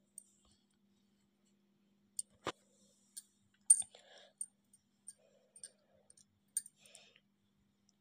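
Metal spoon clinking and scraping against a steel kadhai while stirring a watery potato and bean curry: a scattering of light clicks, the sharpest a little under four seconds in.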